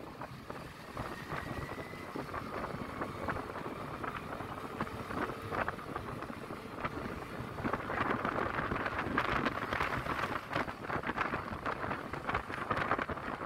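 Wind buffeting the microphone on a moving Yamaha Lexi scooter, with road noise underneath; the buffeting grows louder about eight seconds in.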